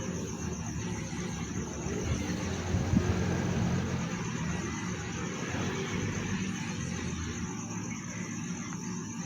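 Low engine rumble of something passing, swelling a few seconds in and thinning out near the end, over a steady pulsing chirp of night insects.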